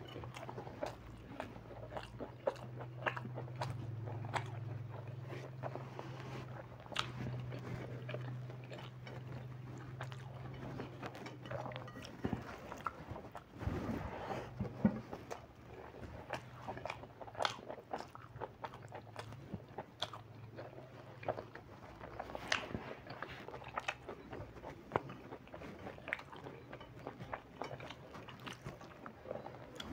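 Close-up mouth sounds of eating rice and chicken by hand: chewing and wet smacking with many short sharp clicks. A low steady hum runs underneath for about the first twelve seconds, then fades.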